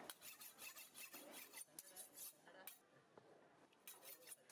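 Faint, quick scraping and clicking of a knife blade working on fish and the wooden block. It comes in a dense run for the first two and a half seconds, then a few more clicks near the end.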